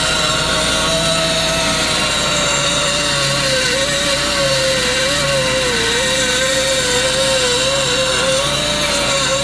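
Air-driven rotary tool spinning a carbide bit that grinds the inside of an ATV exhaust opening wider. It makes a steady high whine that drifts lower and wavers as the bit bites into the metal.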